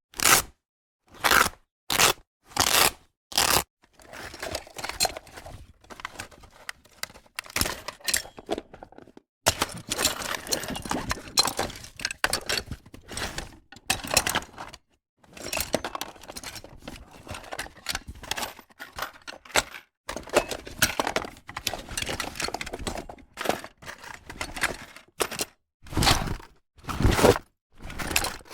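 Tool bag being handled: a handful of separate short knocks and rustles, then long stretches of dense rustling and rummaging, with a few more separate knocks near the end.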